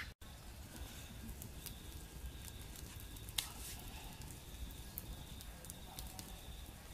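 Wood cooking fire crackling with scattered small pops and one sharper snap about three and a half seconds in, over a faint steady high tone.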